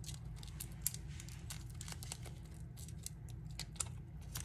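Papery garlic skins crinkling and tearing as smashed cloves are peeled by hand: faint, scattered crackles over a steady low hum.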